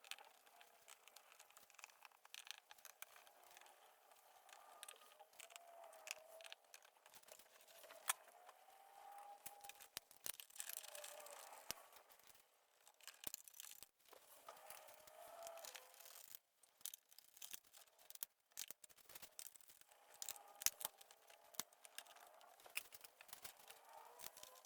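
Faint, scattered clicks, light rattles and scraping from plastic fairing parts and screws being handled and fitted.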